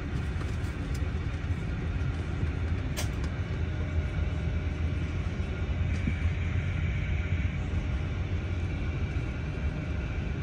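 Cabin noise inside an Airbus A350-900 rolling on the ground: a steady low rumble with a hiss above it, and a single sharp click about three seconds in.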